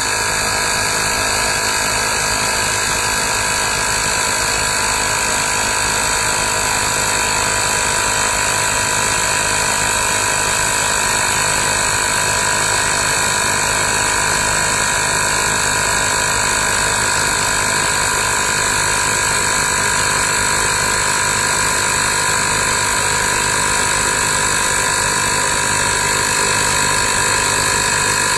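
Fanttik X8 APEX cordless tire inflator's compressor running steadily as it pumps up a 700x38 mm tire toward its set 75 PSI, with a high, even motor whine.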